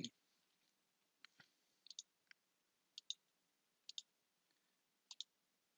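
Faint computer mouse clicks, several in quick pairs about a second apart, against near silence.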